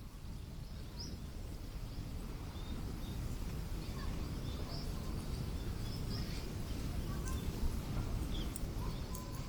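Strong wind buffeting the microphone, a steady low rumble that grows a little after the first second, with scattered faint high chirps and ticks over it.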